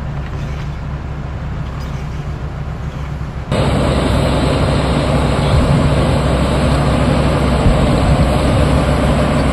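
XCMG XE210 crawler excavator's diesel engine running steadily. The sound turns abruptly louder and closer about three and a half seconds in.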